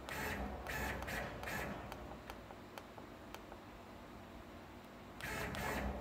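CNC plasma table servo motors driving the torch carriage in several short bursts, with a few light clicks about half a second apart in the middle.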